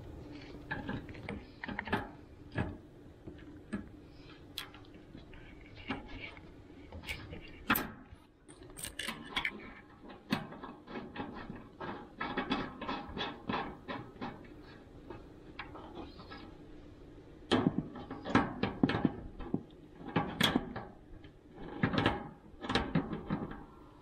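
Hose and gas-line fittings being handled and fitted onto the inlets of a tankless water heater: irregular clicks, taps and scrapes of metal and plastic couplings and a corrugated stainless gas line, coming in quick clusters in the second half.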